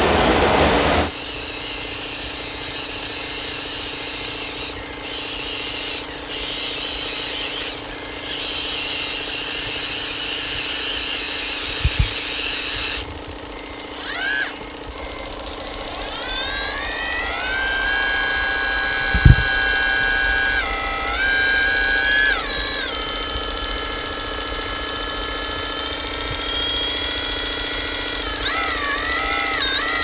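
Whine of a model Volvo RC hydraulic excavator's pump and electric motors, gliding up and down in pitch as the machine works, with two sharp clicks. In the first second, the motor of an RC dump truck is heard before the sound changes.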